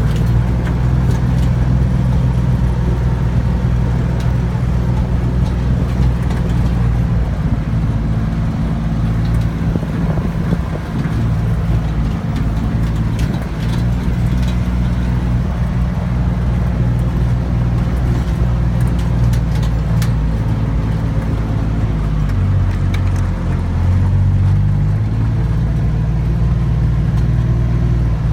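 Vehicle engine running steadily with a low drone, its pitch shifting briefly about 23 seconds in.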